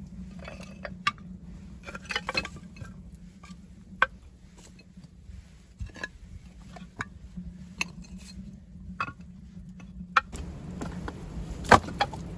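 Scattered clicks, clinks and knocks of broken clay tile pieces and short logs being set down and shifted by hand. The loudest knock comes near the end.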